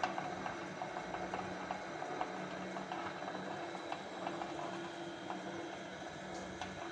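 Racca y Cía pasta dough mixer running, its motor and drive giving a steady hum while the hook arm kneads flour in the steel bowl, with frequent irregular light ticks over the hum.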